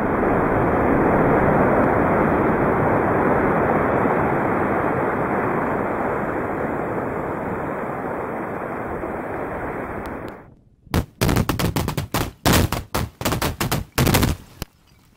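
Open-pit mine blast: a dense, rumbling roar of the detonating benches that slowly fades and then cuts off about ten seconds in. After a short gap comes a quick, irregular string of sharp bangs like gunfire for about three seconds, the last as a charge blows up dirt and debris.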